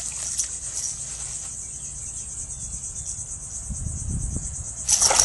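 Steady, high, finely pulsing chorus of insects such as crickets, with a brief loud rush of noise near the end.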